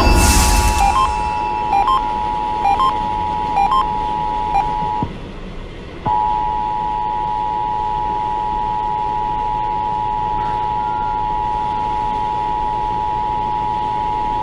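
Radio playing the Emergency Alert System two-tone attention signal, a steady dual tone. For the first five seconds short beeps cut in about once a second. The tone then drops out for about a second and resumes steady, ending near the end.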